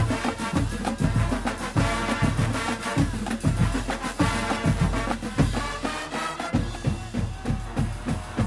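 Large marching band playing: massed brass (trumpets, trombones, sousaphones) over a steady pulse of Yamaha bass drums and percussion. The low end drops out briefly about six seconds in.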